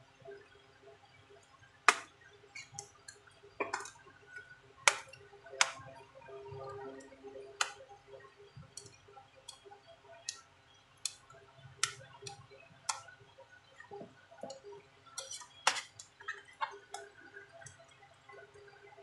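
Irregular sharp clicks, snaps and taps of plastic and metal as an Asus X540U laptop's keyboard top case is handled and pried apart with a metal pry tool; the loudest click comes about two seconds in.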